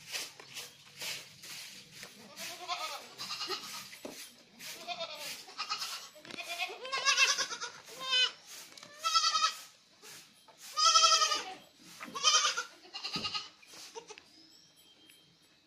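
Several Osmanabadi goats bleating, one call after another and overlapping, each call with a quavering pitch. The loudest bleats come about halfway through, and the calling dies down near the end.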